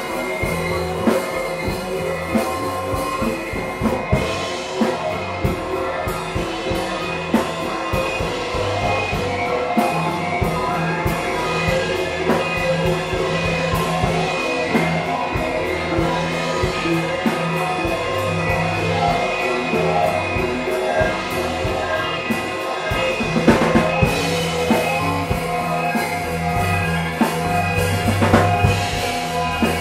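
Live improvised space rock: a band with drum kit, bass, guitars and keyboard playing a dense, continuous jam with steady drum hits under sustained bass notes.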